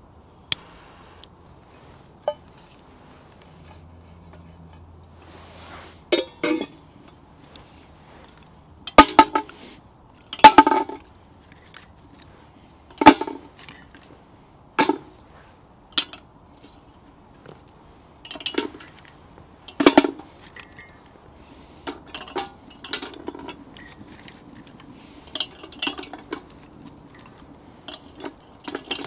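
Stainless steel Kelly kettle and firebase clanking: a string of sharp metallic knocks and clinks with a short ring as the kettle is seated on its firebase and sticks are dropped down its chimney. The loudest knocks come about a third of the way in.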